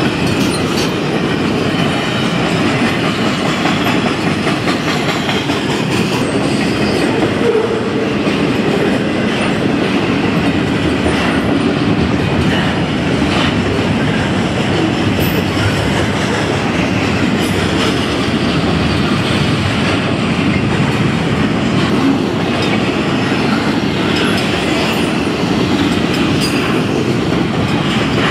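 Double-stack intermodal container train of well cars rolling past at close range. Its steel wheels make a steady, loud rumble on the rails with faint, irregular clicks.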